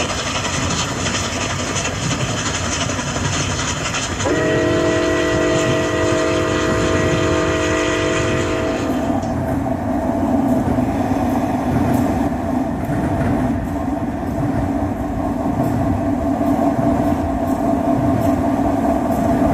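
Sound of a model diesel locomotive running, with steady engine and rail noise. About four seconds in, a multi-chime horn sounds one long blast lasting some four and a half seconds. After that the sound turns to a lower steady hum.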